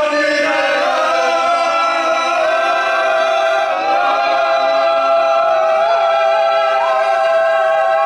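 Unaccompanied voices singing one long held note, the pitch sliding slightly once or twice before settling and holding steady.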